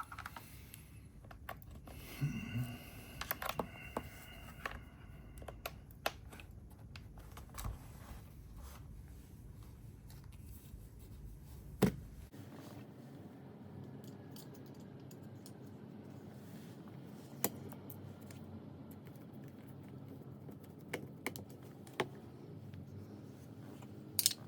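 Sparse light clicks and taps from the MSI Claw A8 handheld being handled while it boots, over low background noise; the sharpest click comes about halfway through.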